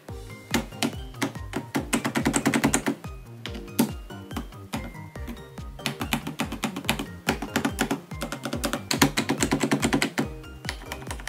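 Keys of a transparent mechanical keyboard with handmade resin keycaps clacking in quick runs as a finger presses them, over background music with a steady beat.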